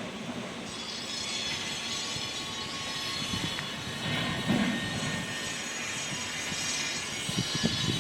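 Steady outdoor urban noise of traffic and machinery hum, with a slightly louder swell about halfway through.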